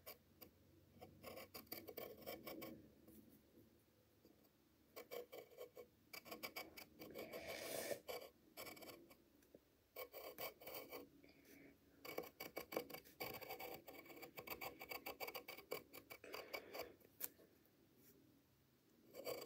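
Faint pencil scratching on paper as lines are drawn, in runs of short strokes with brief pauses, one about three seconds in and another near the end.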